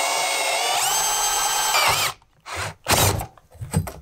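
Cordless drill boring a hole through steel plate, its motor whine stepping up in pitch about a second in and winding down about two seconds in. A few short knocks and clunks follow.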